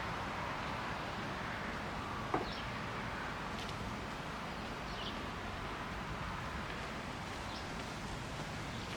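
Outdoor ambience: a steady background hiss with short, faint, high chirps every second or two, likely small birds, and a single sharp click about two and a half seconds in.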